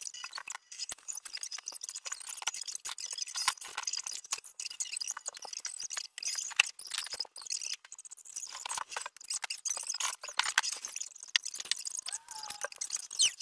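Rustling and clattering of clothes and household items being pulled out of a closet and handled: a dense run of quick clicks and knocks, with a short squeak about twelve seconds in.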